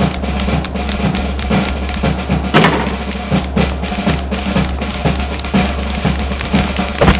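Background music driven by drums, with a steady bass underneath and frequent drum hits.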